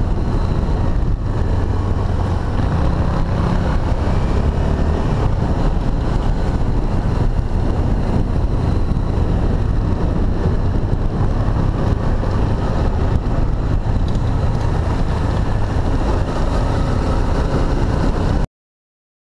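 Honda XRE 300's single-cylinder engine running steadily while riding a dirt road, with wind buffeting the microphone. The sound cuts off abruptly near the end.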